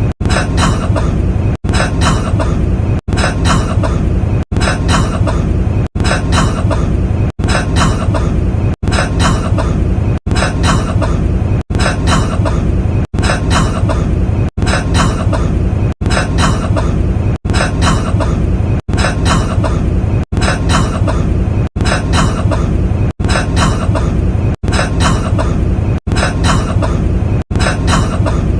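A man's cough, the same short recorded clip looped over and over, repeating about every second and a half with a brief break between repeats.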